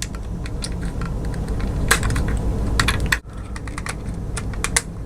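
Small irregular clicks and scrapes of an X-Acto knife blade cutting and chiselling at the hard plastic axle hub of a diecast model car wheel, with a few quick clusters of clicks.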